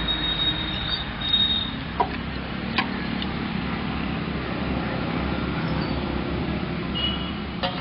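Spatula stirring a boiling gravy in a large aluminium pot, with light knocks against the pot about two and three seconds in, over a steady rushing noise.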